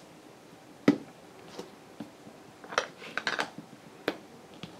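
Light clicks and taps of small craft items being handled and set down on a desk: a sharp tap about a second in, a quick cluster of clicks around three seconds, and another tap near the end.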